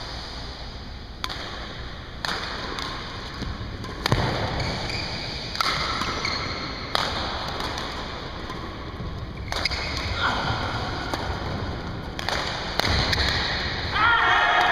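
Badminton doubles rally: racket strings striking the shuttlecock, with players' footfalls on the court, as a run of sharp knocks about one to two seconds apart.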